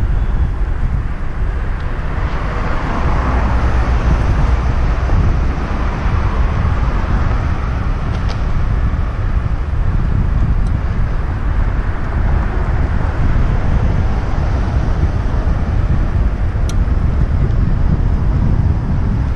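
Wind rushing over the microphone of a bike-mounted action camera as it rides along, a steady low rumble, with cars passing on the road alongside. A couple of faint ticks come through, about eight seconds in and again near the end.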